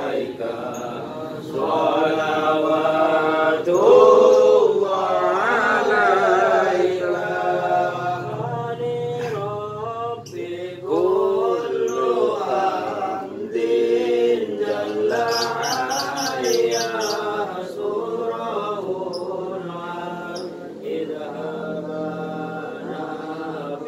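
Several men chanting an Islamic devotional song (sholawat) together in unison, unaccompanied, in long melodic phrases.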